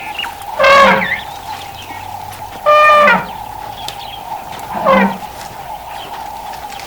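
An animal calling three times, about two seconds apart; each call is a short pitched cry of about half a second. A faint steady tone sounds underneath.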